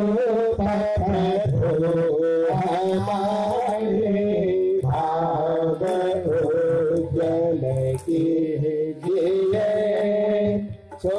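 A devotional prayer song sung slowly in a melodic line over a steady low drone, in long phrases with short breaks between them.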